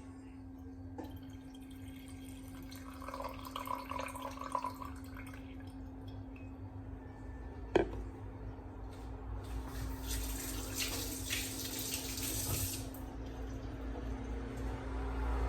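Water running from a tap into a sink for a few seconds in the second half, after some light clatter and one sharp knock about halfway through. A steady low hum runs underneath.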